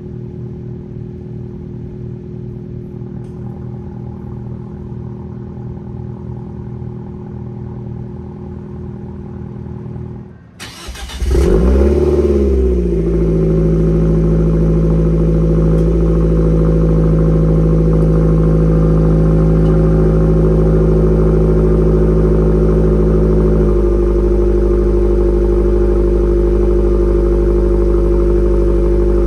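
Fiat 124 Abarth's turbocharged four-cylinder idling through its aftermarket exhaust, heard from a distance. About ten seconds in it cuts to a much louder, close recording of the same car with a resonator System One exhaust and GWR 2.5-inch crosspipe: the revs flare up briefly, then settle into a steady idle that steps down slightly twice.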